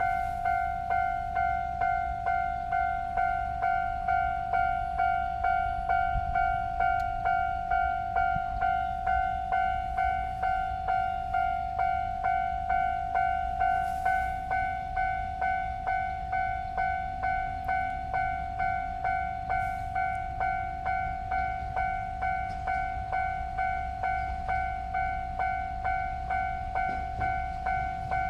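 Japanese level-crossing warning bell ringing, its electronic clang repeating about one and a half times a second at an even pace: the crossing is closed for an approaching train. A low rumble runs underneath.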